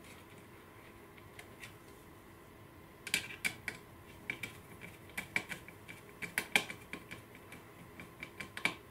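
Small clicks and taps of model parts being handled and fitted: a bogie, washer and screw going into a resin underframe with a screwdriver. Quiet for about the first three seconds, then a string of irregular sharp clicks.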